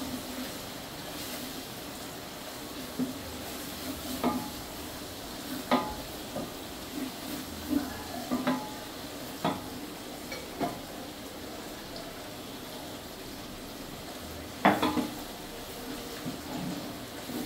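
Sliced onions frying in oil in a large aluminium pot, a steady sizzle, as a wooden spatula stirs them and knocks against the pot now and then. The loudest knock comes about three-quarters of the way through.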